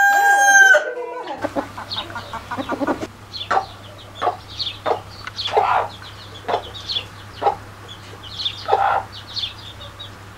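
A rooster's crow ends about a second in; after that, chickens cluck in short, separate calls every second or so, a few of them louder, over a steady low hum.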